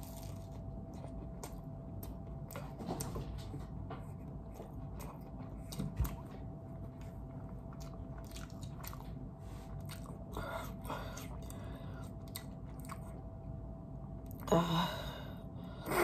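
A person chewing fried chicken and pizza with the mouth open to the sound, giving many small crunchy and wet clicks. A faint steady hum runs underneath, and a brief vocal sound comes near the end.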